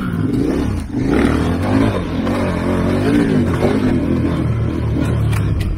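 Twin-cylinder adventure motorcycle engine running on a dirt trail, its revs rising and falling again and again as the throttle is worked. A few sharp clicks come near the end.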